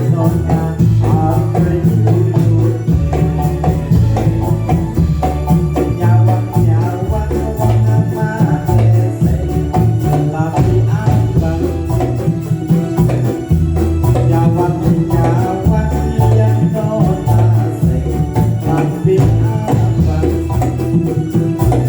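Ndolalak dance music: a continuous beat of tambourine-like jingles and rattles over a heavy low drum, with a melodic line above.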